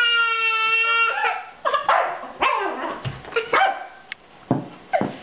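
Six-month-old puppy barking and yipping in short, sharp calls while playing with an electronic baby toy. A steady high tone lasts about a second at the start.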